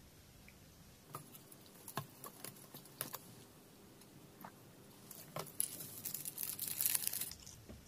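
Small clicks and taps as a plastic drink bottle and snack packets are handled on a table, then a dense crinkling of a wrapper in the last couple of seconds.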